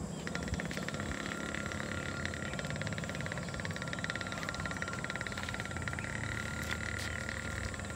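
Frogs calling from the marsh in a steady, fast trilling chorus, with a low rumble beneath.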